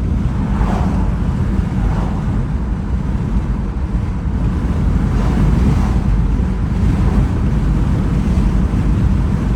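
Steady, loud low rumble of wind buffeting the microphone, mixed with road noise from a Toyota RAV4 Woodland on the move.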